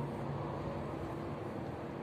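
Steady low background hum and noise with no distinct events, typical of outdoor ambience such as distant traffic.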